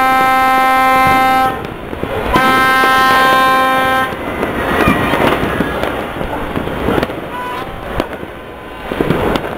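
Fireworks and firecrackers popping and crackling throughout, with a horn blowing two long, steady blasts in the first four seconds; after the horn stops, the crackling fills the rest.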